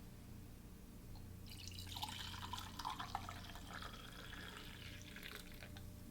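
Brewed coffee poured from a carafe into a mug: a trickling, splashing stream that starts about a second and a half in and tapers off about four seconds later.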